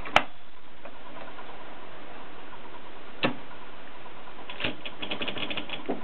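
Olympia SM 2 portable typewriter's mechanism clacking: one sharp clack just after the start, another about three seconds in, then a quick run of lighter clicks over the last second and a half.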